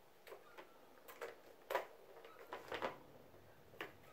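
Blue plastic three-tier cat track tower toy clicking and knocking as a kitten bats its balls around the tracks: about eight faint, separate clicks at uneven intervals.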